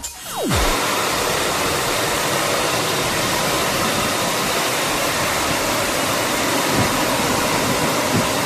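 Drying blowers of a Golden Boat G8 touchless car wash gantry running steadily. It is a loud, even rush of air with a faint whine.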